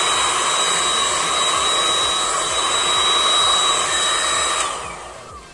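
Hot-air heat gun blowing steadily with a thin motor whine, heating the covering on a lithium-ion battery pack. It is switched off near the end: the whine falls and the blowing fades as the fan spins down.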